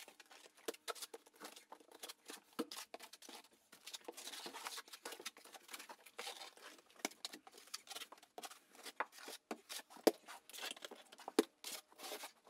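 The flat side of a trowel scraping and tapping thinset mortar onto a wood subfloor, working it in as a first burn-in coat: a run of irregular short scrapes and taps, with longer scraping strokes about four and ten seconds in.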